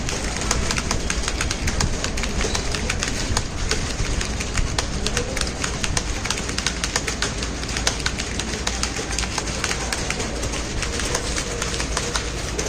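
Computer keyboard being typed on quickly and continuously, a dense irregular run of key clicks, over a steady background hiss.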